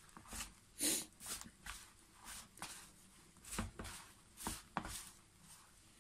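Hands squeezing and mixing a shaggy, not-yet-formed flour dough in a plastic tub, early in the kneading. It makes soft, irregular squishing and scraping strokes, a few a second, the loudest about a second in.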